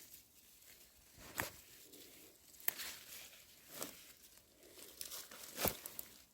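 Plant leaves and stems rustling under handling, with four sharp snaps spaced about a second or two apart, the loudest near the end.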